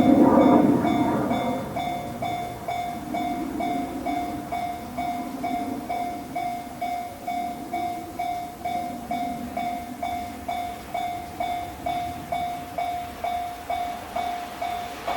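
A Japanese level crossing's electronic warning bell dings steadily, a little over twice a second. A JR Kyushu 817-series electric train's running noise is loud at the start and fades within about two seconds, leaving a lower rail rumble that rises and falls under the bell.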